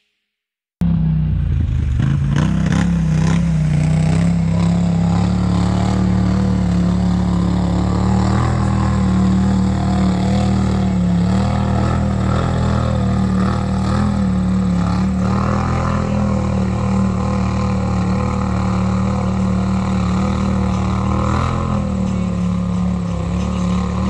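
An ATV engine running at a steady speed, a constant drone with a slight waver in pitch, starting about a second in after a short silence.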